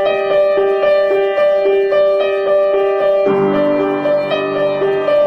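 Outro music: a keyboard melody moving back and forth between two notes, with lower notes coming in about three seconds in.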